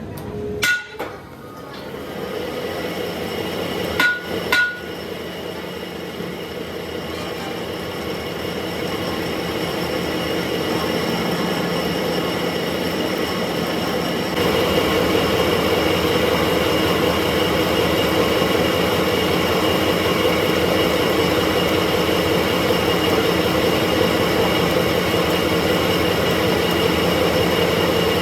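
Metal lathe running steadily with a hum of several held tones, growing louder and stepping up about halfway. A few sharp metal knocks come in the first five seconds.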